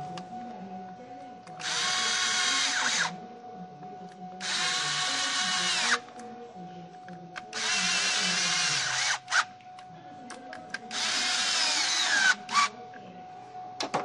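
Cordless drill-driver run in four bursts of about a second and a half each, its motor whine rising at the start of each burst, used on the ignition coil pack of the Grand Prix's 3.8 V6.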